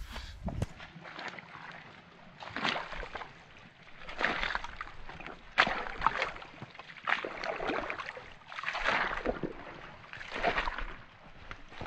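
Footsteps in trail shoes through wet mud and shallow water, one step about every second and a half.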